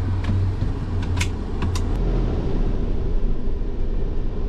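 Sprinter motorhome driving, with steady engine and road rumble. A few light clicks come in the first two seconds.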